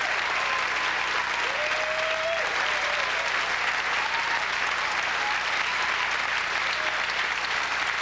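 Large audience applauding steadily in a hall, with a few whistles.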